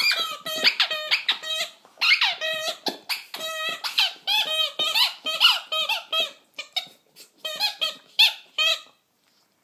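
Squeaky rubber toy ball squeezed over and over in quick succession, a string of short pitched squeals that stops about nine seconds in.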